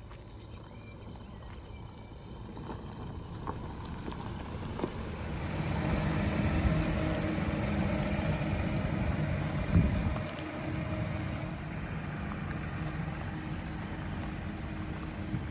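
Jeep Avenger's 1.2 turbo petrol three-cylinder engine running, growing louder about five seconds in. There is one thump near the middle, and then it settles a little quieter.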